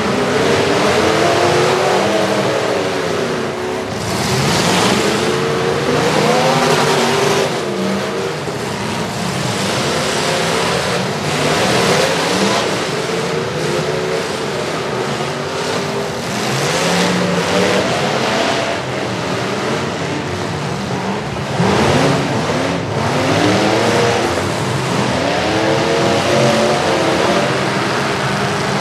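Several demolition derby cars' engines revving hard and dropping back, their pitches rising and falling over one another, with occasional sudden crunches as the cars hit.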